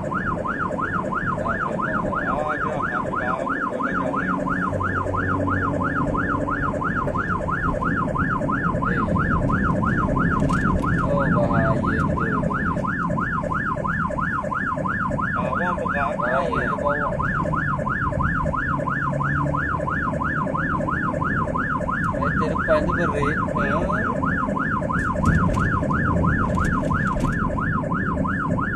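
Ambulance electronic siren sounding continuously from inside the cab, a fast up-and-down wail that sweeps several times a second, over steady engine and road noise.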